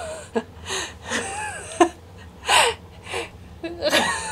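Breathy laughing in short bursts, with a few brief pitched squeals.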